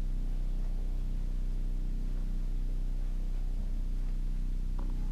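A steady low hum with even overtones, unchanging throughout. Struck, marimba-like music notes come in right at the end.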